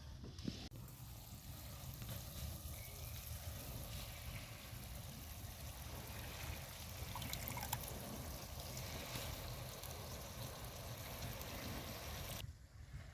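Food sizzling in a hot pan: a steady hiss that starts abruptly just after the start and cuts off shortly before the end.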